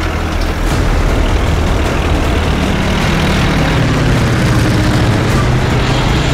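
Engines of an open jeep and a single-engine propeller plane running hard side by side during the plane's takeoff run, a dense steady engine noise with a deeper tone that strengthens about two and a half seconds in.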